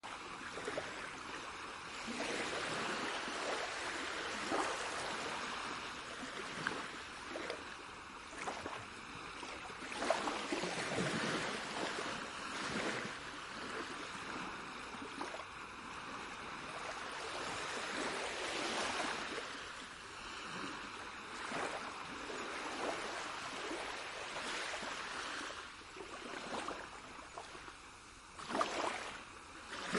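Moving water rushing and splashing without a break, swelling and easing every few seconds.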